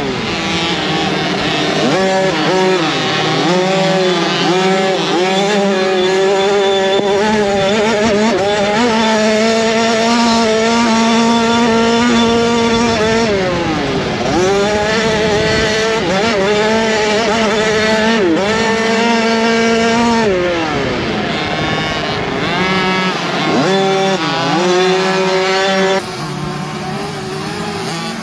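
Youth motocross bike's engine heard close from the bike itself, revving up and down over and over as the rider accelerates, shifts and backs off through the turns. About two seconds before the end the sound drops and changes to bikes heard passing at a distance.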